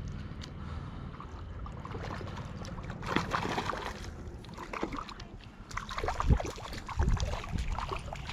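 A hooked trout splashing at the water's edge as it is played in without a net, with scattered small splashes and knocks, busiest about three seconds in and again near the end, over a steady low rumble.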